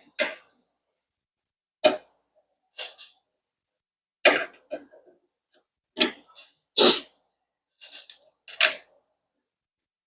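Short clicks and clacks of a MIG welder's wire-feed drive roll and its retaining screw being handled while the roll is checked and swapped over. About a dozen separate knocks come in small clusters, with the loudest about two-thirds of the way through.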